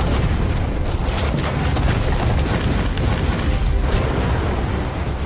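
A building collapsing, heard as a steady deep rumble of crashing masonry, with dramatic film music over it.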